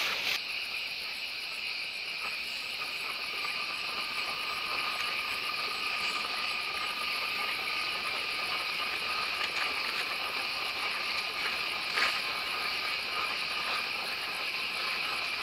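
Steady, dense chorus of insects trilling in the background, a continuous shrill hum with a fainter steady high tone joining about three seconds in; a single click about twelve seconds in.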